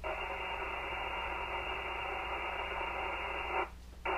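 Scratchy, hissy FM signal from the local 2-metre repeater coming back through the Elecraft KX3's speaker after a transmission, the sign that the low-power rig is hitting the repeater. The hiss is steady, cuts off sharply about three and a half seconds in, and is followed by a short burst of hiss near the end.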